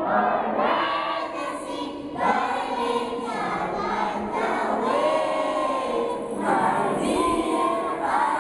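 Children's choir singing a school hymn, many young voices together in long held, gliding notes.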